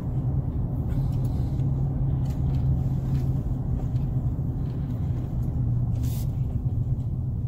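Steady low engine and road rumble of a car being driven, heard from inside the cabin, with a constant low hum.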